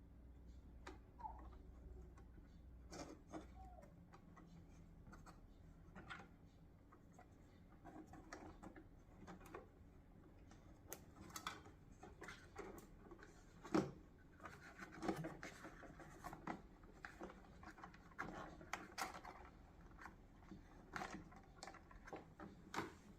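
Faint handling noises of heat-shrink tubing being worked over a headlight's wiring: scattered light clicks, taps and rubbing of plastic and wire, with one sharper knock about 14 seconds in.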